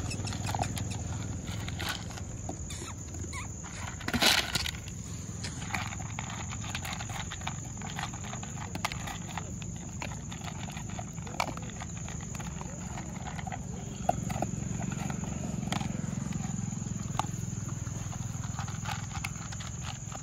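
Stray dogs eating dry kibble from plastic bowls: scattered crunching and short clicks, one louder knock about four seconds in, over a steady high insect drone.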